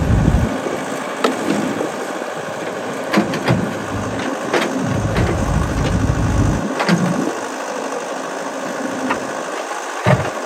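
Yanmar ViO70 mini excavator's diesel engine running steadily and swelling in low rumbles as the hydraulics load up while the bucket digs wet mud. Sharp clanks and knocks come at intervals.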